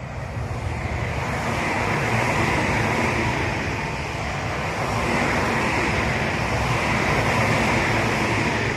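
Tobu Tojo Line electric train passing close by, a steady rush of wheel-on-rail noise that builds in the first second, holds, and begins to fade near the end.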